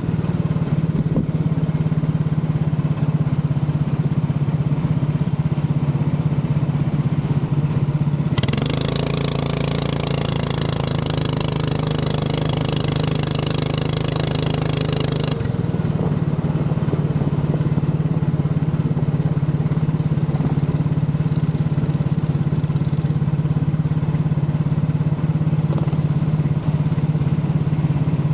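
Go-kart engine running at a steady, nearly constant pitch. In the middle, for about seven seconds, a louder hissing stretch with a second, higher engine note joins it.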